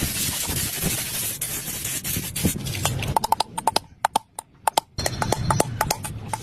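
A steady hiss for about three seconds, then a quick, irregular run of sharp clicks and taps, some with a short ring.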